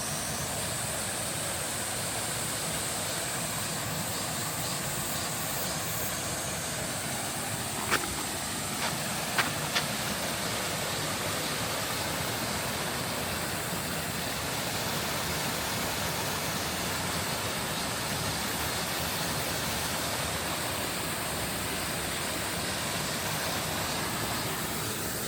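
Mountain valley stream running over rocks in a steady, even rush of water, with a few short sharp clicks about eight to ten seconds in.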